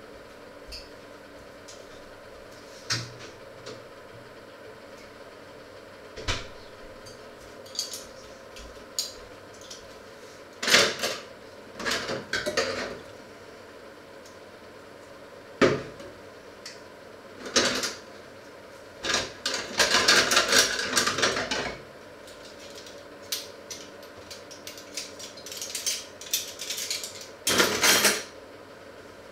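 Pots, lids and utensils clattering and knocking on and off as they are handled at a kitchen sink, with a longer run of clatter about twenty seconds in, over a faint steady hum.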